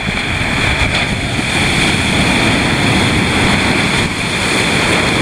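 Heavy storm surf breaking and rushing in, mixed with blizzard wind buffeting the microphone: a loud, steady rush of noise.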